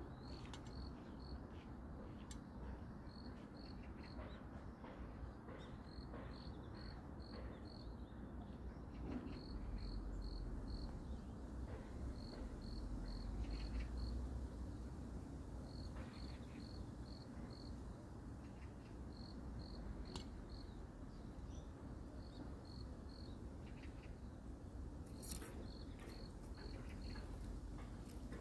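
Cricket chirping in short runs of three to five high pulses, repeating every few seconds over a faint low rumble.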